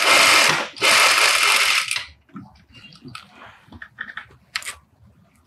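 Industrial sewing machine stitching fast, in two runs with a short pause under a second in, stopping about two seconds in while understitching the pocket-opening seam. Then fabric rustling and a few small clicks as the piece is handled at the needle.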